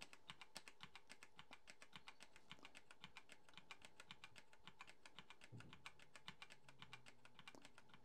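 Computer keyboard keys tapped over and over in quick succession, about six to seven presses a second: F2 and Delete are being hit during boot-up to get into the BIOS. The tapping is faint, and a faint low hum comes in about five and a half seconds in.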